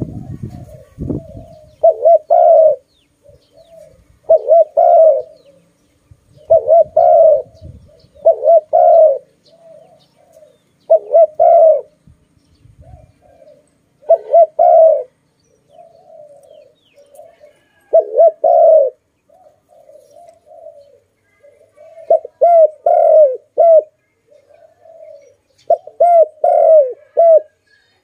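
Spotted dove cooing loudly, repeating a short phrase of several coos every two to four seconds, with softer notes in between. A low rumble runs under the first second or so.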